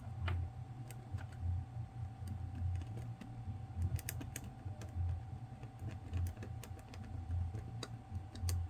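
Scattered light clicks and taps as a small electronic part and tools are handled at close range, over a low hum that swells about once a second and a faint steady tone.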